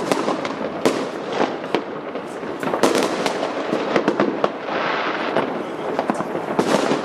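Fireworks display: many bangs and crackling bursts going off in quick irregular succession, with the haze of distant explosions between them.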